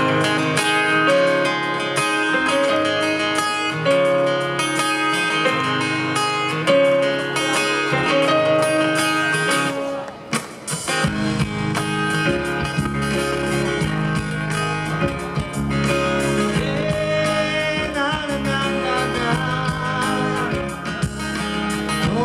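Live band playing a song's instrumental intro with guitar. About halfway through, after a brief dip, bass and a fuller band come in.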